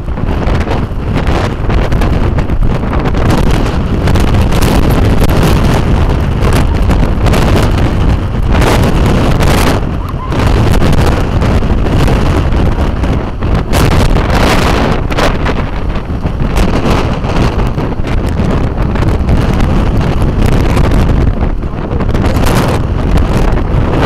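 Windstorm gusts buffeting the microphone: loud wind noise heavy in the low end, rising and falling with the gusts and easing briefly about ten seconds in and again near the end.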